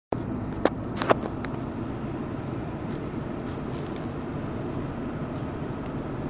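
Steady engine and road noise heard from inside the cabin of a moving vehicle on a snow-covered road, with a few sharp clicks in the first second and a half.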